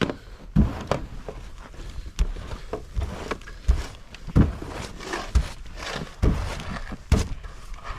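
Snow being cleared: a series of dull thuds, roughly one or two a second, with scraping of snow in between.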